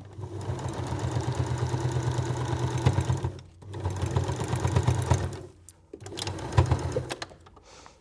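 Electric domestic sewing machine stitching through oilcloth in three runs separated by short pauses, the last run the shortest. A few sharp clicks come as the stitching stops near the end.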